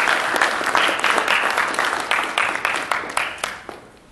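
Audience applauding, with many hands clapping together, then dying away near the end.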